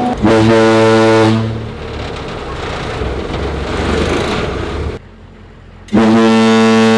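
Loud blasts from a Hornblasters air horn mounted on a Humvee: a blast of about a second at the start, then a few seconds of the vehicle running, and another long blast starting near the end.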